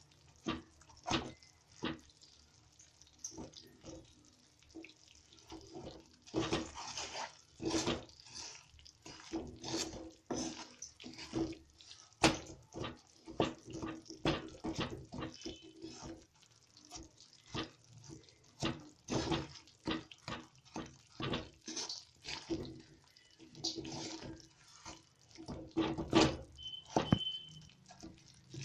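A spoon stirring and scraping in a pan of melting jaggery, in short irregular strokes about one or two a second.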